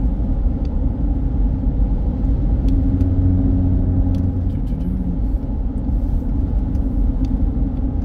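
Steady road and tyre rumble with the engine running, heard from inside a truck's cabin while it drives at highway speed.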